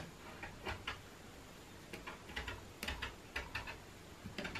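Skip-blade rotary cutter rolled along a fabric edge on a cutting mat, perforating it for crochet stitches: a string of faint clicks at an uneven pace.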